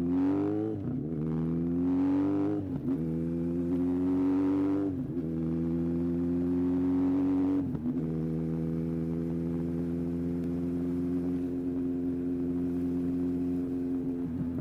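Yamaha XJR1300's air-cooled inline-four engine accelerating through the gears: four climbs in revs, each cut by a quick drop in pitch at the upshift. About eight seconds in it settles into a steady, even note at cruising speed.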